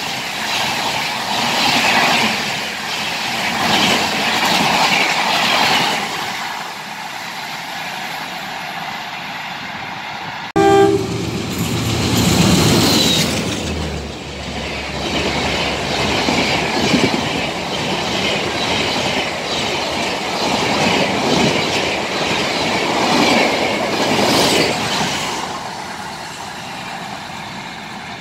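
Shatabdi Express passenger coaches passing at speed, their wheels clattering over the rail joints in repeated loud pulses. About ten seconds in the sound jumps abruptly to a second passing train, with a short tone at the change. Near the end the clatter fades as the train draws away.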